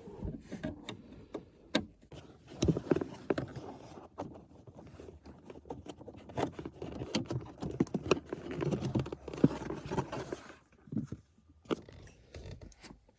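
Irregular scraping, rattling and clicking of a T20 Torx driver and a plastic trim panel being worked at under a car's dashboard.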